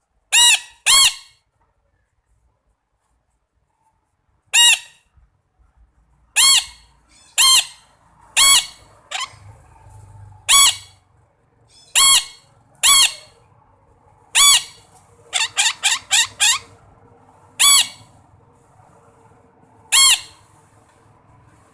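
Red-breasted parakeet calling: short, loud calls repeated about once a second or so. There is a silent gap of a few seconds after the first two calls and a quick run of five calls about two-thirds of the way through.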